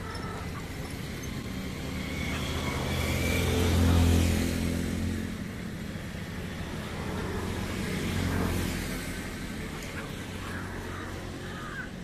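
Motor vehicles driving past: an engine's hum rises and fades as one passes, loudest about four seconds in, and a second passes about eight seconds in.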